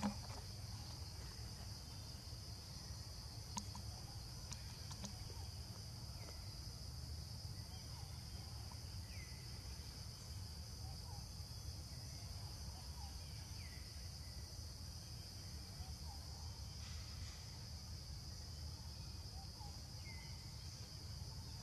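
Steady high-pitched drone of insects in forest, with a few faint short chirps scattered through it over a low background rumble.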